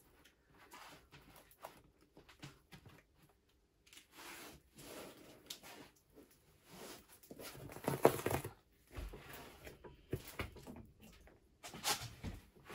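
Quiet, scattered rustling and light knocks of a self-adhesive Blackton damping sheet being handled and pressed into place, with a louder knock about eight seconds in.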